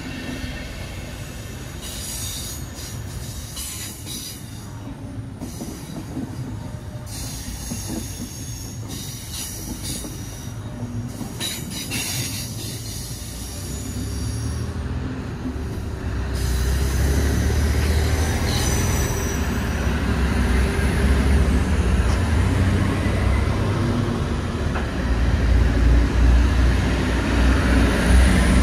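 Passenger coaches rolling through a station with wheels squealing shrilly in fits over the first dozen seconds. About halfway through comes a DSB IC3 diesel trainset, whose deep, loud rumble sets in and carries on as it pulls away.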